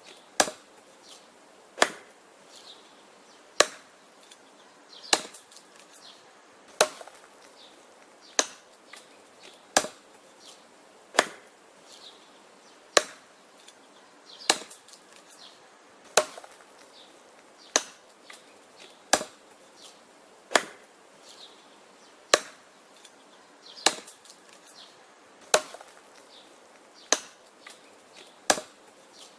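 Axe chopping wood: sharp, steady blows about one every one and a half seconds, each followed by fainter knocks.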